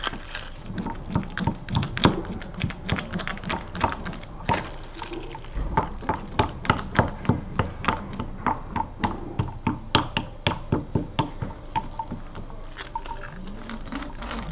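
Fibreglass laminating roller being worked back and forth over resin-wet glass mat, a rapid irregular run of sharp clicks and squelches as the laminate is rolled out to remove trapped air.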